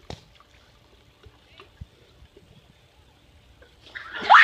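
Mostly quiet outdoor background with a few faint clicks. Near the end a young woman starts screaming loudly, a high scream that swoops up and down in pitch.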